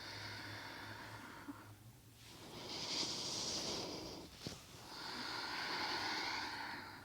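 A woman breathing slowly and audibly: three long, airy breaths, with a small click between the second and third.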